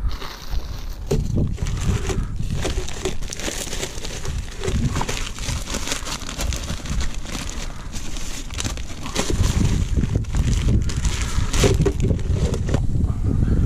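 Clear plastic bag of deadbait crinkling and rustling as it is lifted out of a plastic bait box and handled, with a steady run of small crackles.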